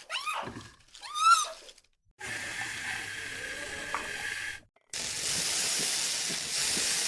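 Two short wavering, gliding cries, then a steady hiss, like frying or running water, in two stretches with a brief break between.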